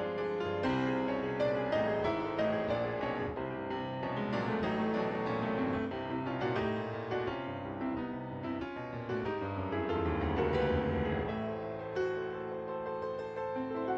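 Instrumental piano music playing a run of many quick notes.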